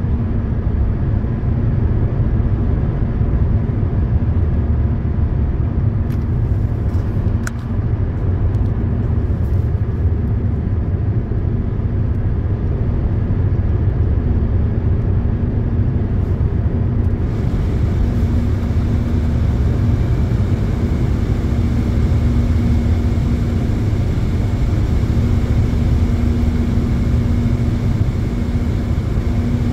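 Steady road and tyre noise with engine drone inside a Hyundai Elantra's cabin at highway speed, over a constant low hum. A little past halfway, a brighter hiss joins the road noise and stays.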